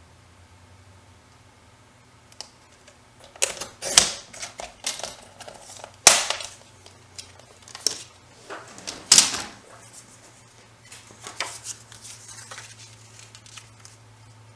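Paper trimmer cutting paper, heard as a run of sharp clicks and scraping swishes over several seconds, mixed with paper rustling; the loudest strokes come about four, six and nine seconds in.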